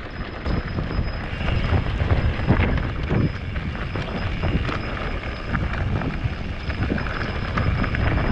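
Wind buffeting the microphone of an action camera on a moving mountain bike, with irregular knocks and rattles from the bike riding over rough ground.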